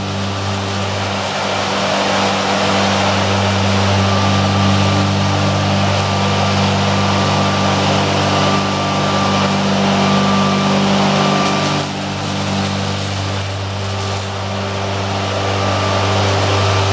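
Frequency-controlled electric plant-trimming machine running, its cutting-head motors humming steadily with a rushing whir as they trim the tops of potted plants. A faint high tone joins in from about four to twelve seconds in, and the sound dips briefly about twelve seconds in.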